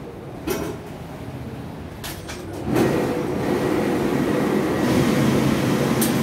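Dry-cleaning pressing equipment starts up nearly three seconds in and runs with a loud, steady mechanical hum and rumble. A few clicks and rustles of handling come before it.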